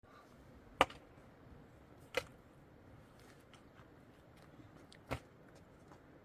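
Three sharp knocks, the first two about a second and a half apart and the third about three seconds later, with a few fainter taps between them over a low hiss.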